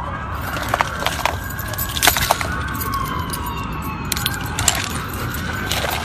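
Emergency vehicle siren wailing, its pitch slowly rising and falling, with several sharp clicks and knocks from the phone being handled.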